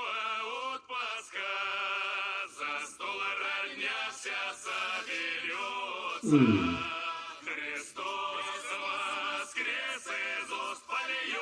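Background music of men singing in chorus, their voices wavering with vibrato. About six seconds in comes the loudest moment, a short deep note that slides sharply down in pitch.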